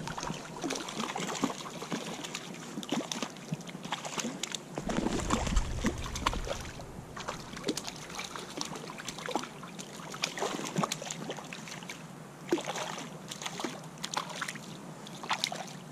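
Hooked trout splashing and thrashing at the water's surface while it is played in on a fly rod, with scattered sharp splashes over steady sloshing water. A low rumble rises briefly about five seconds in.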